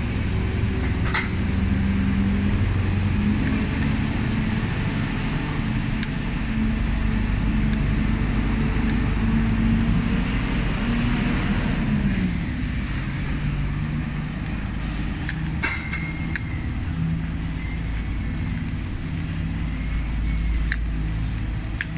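Street ambience dominated by a vehicle engine running steadily, with a few sharp clicks scattered through it.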